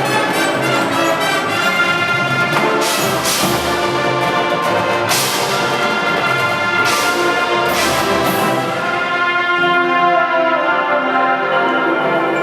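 Orchestral music with brass holding sustained chords, punctuated by a few crash-like percussion hits in the first two-thirds.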